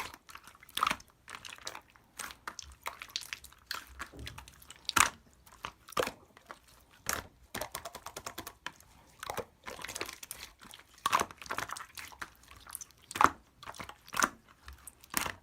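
Clear slime being squished and pressed by hand, making irregular sticky clicks and pops, a few of them louder.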